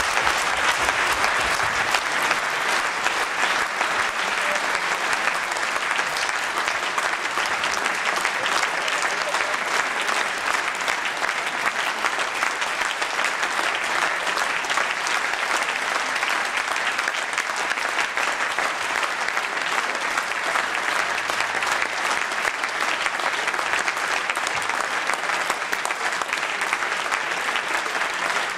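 Audience applauding steadily: sustained hand clapping from a hall full of people after a speech ends.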